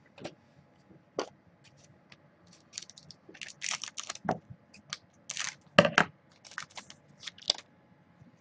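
Hockey trading cards handled and flipped through by hand: an irregular run of short clicks, snaps and brief rustles as the cards slide and tap against each other, busiest in the middle of the stretch.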